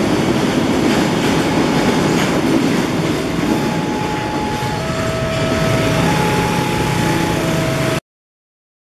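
A passenger train rolling along the track with a steady rumble and clatter of wheels. From about halfway, thin high steady tones join in, switching between a few pitches, and the sound cuts off suddenly near the end.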